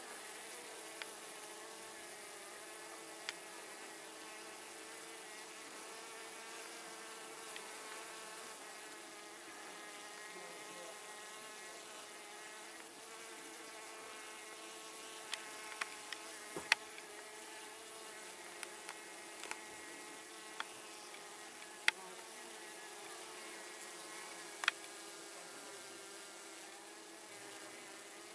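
Honeybees buzzing in a steady, continuous hum. A few sharp clicks sound over it, a cluster of them about halfway through.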